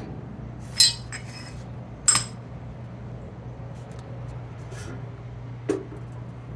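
Hard metal parts clinking together three times, sharp and ringing, the first two about a second apart and louder, as a frozen front wheel bearing and the steering knuckle are handled and set up on an arbor press. A steady low hum runs underneath.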